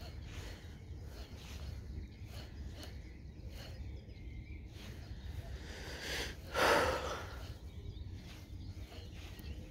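Wind rumbling on the microphone by a lake, with faint scattered ticks and one brief loud rush of noise about six and a half seconds in.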